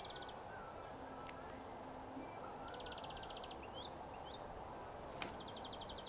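Faint songbirds outdoors: short high chirps and three brief rapid trills, with a few short sliding notes, over a steady background hiss. A couple of faint clicks fall about a second in and near the end.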